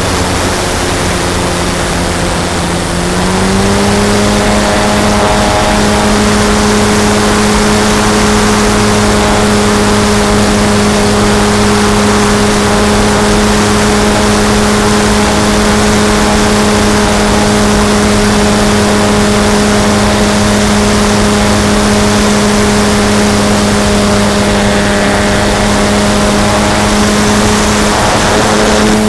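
A radio-controlled model airplane's motor and propeller running steadily in flight, heard from the onboard camera with wind rushing over the microphone. About three seconds in, the pitch rises and the sound grows louder as the throttle opens, then holds steady.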